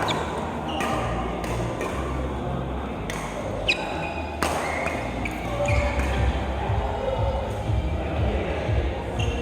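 Billiard balls clicking against each other a few times, the sharpest about three and a half seconds in, over a steady low hum of the hall.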